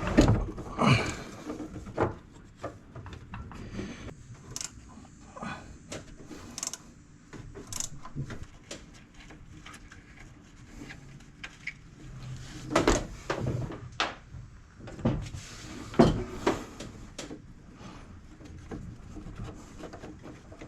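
Irregular knocks, clicks and rattles of hand tools and metal parts being handled, a few louder clunks among them.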